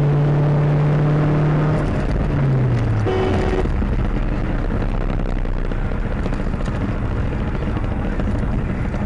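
Car driving, heard from inside the cabin through a dashcam: a steady low drone of engine and road noise that falls in pitch about two seconds in, a brief higher tone about three seconds in, then an even road rumble.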